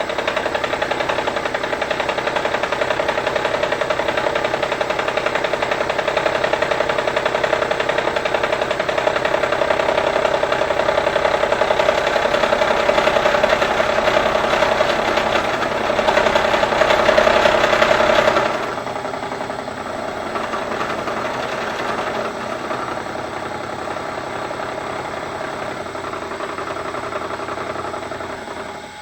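Bridgeport milling machine with an end mill taking a facing cut across mild steel plate: a loud, steady cutting noise with a strong steady tone. About two-thirds of the way through it drops suddenly to the quieter sound of the spindle running, as the cutter clears the work.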